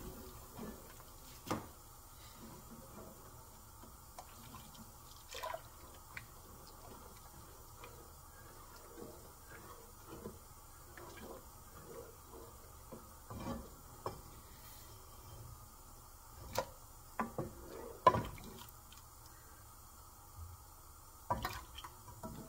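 Wooden spoon stirring a thin, liquid karhi (yogurt and gram-flour curry) in an aluminium pot, with light sloshing and scattered knocks and scrapes of the spoon against the pot, a few of them sharper in the second half.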